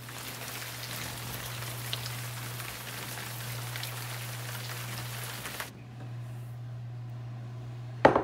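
Wet waffle batter ingredients (beaten egg, melted butter and water) poured from a small glass bowl onto dry mix in a large glass bowl and scraped out with a silicone spatula: a steady hiss for about six seconds that then stops. A sharp knock near the end.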